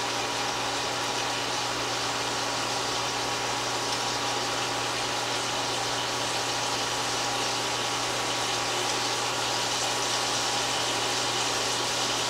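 Steady mechanical hum with an even hiss over it: a portable countertop cooktop running with chicken breasts frying in the pan on it.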